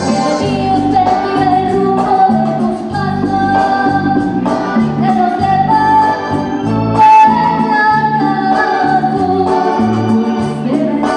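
A woman singing a ballad live into a microphone, amplified through a PA speaker, over a musical accompaniment of sustained chords and a bass line. Her notes are long and held, with a slight waver.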